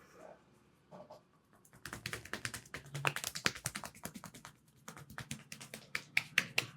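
A masseur's hands rapidly tapping and striking a person's head in an Indian head massage. The quick sharp taps come many a second in two runs, with a brief pause between them.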